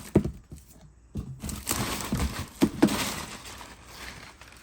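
Packing material in a cardboard box rustling and crinkling as hands dig through it, with a few sharp knocks, two of them close together midway.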